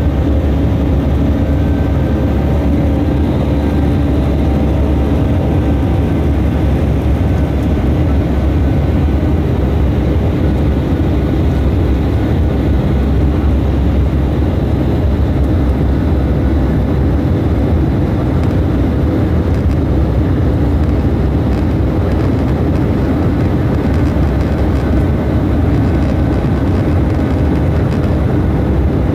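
Cabin noise of an Airbus A319 airliner climbing after takeoff: a steady, loud low rumble of the jet engines and airflow, with a few faint steady hums on top.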